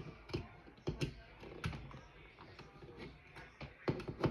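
Irregular plastic clicks and taps from a fork prying at a stubborn keycap, the Esc key, on a computer keyboard; the key will not come off.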